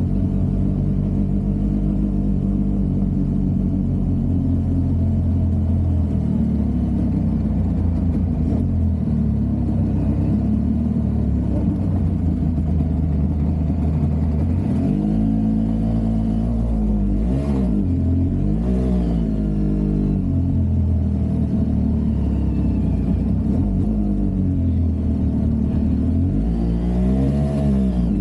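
Motorcycle engine running with a steady low rumble. Its pitch rises and falls a few times, in a cluster around halfway through and again near the end.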